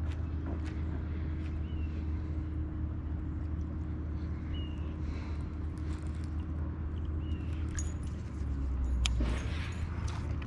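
Steady low rumble with a faint steady hum above it. Short high chirps come every second or two, with a few clicks. The rumble swells louder around nine seconds in.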